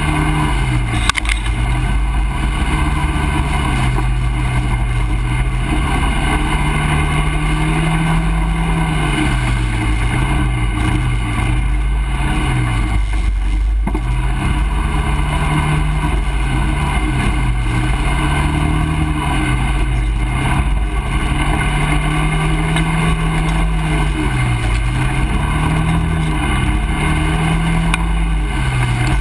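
ATV engine running while riding a trail, its pitch rising and falling with the throttle and easing off briefly about a third of the way in and again near the end.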